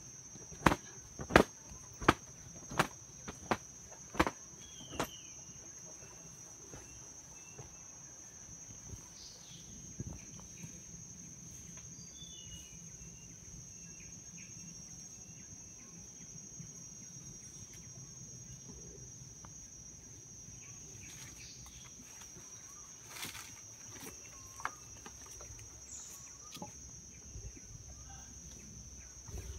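Steady, high-pitched insect drone in forest. Near the start comes a run of about seven sharp knocks, evenly spaced and growing fainter.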